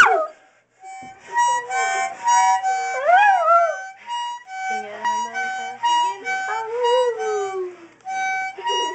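Harmonica playing short held notes and chords while a miniature pinscher mix dog howls along, its howls rising and falling in pitch, with one long howl sliding slowly downward near the end.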